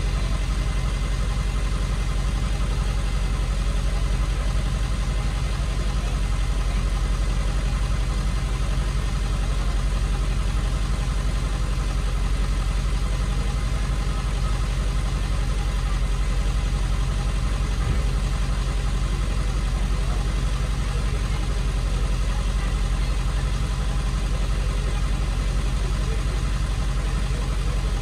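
Tow truck engine idling steadily, heard from inside the cab.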